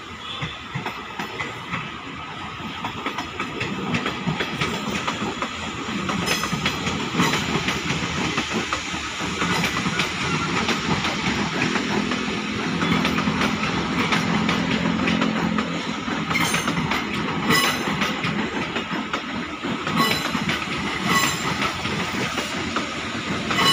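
KRL Commuter Line electric multiple-unit train running past on the nearby track, wheels clicking over rail joints, some clicks in pairs. It grows louder a few seconds in, with a low motor hum in the middle.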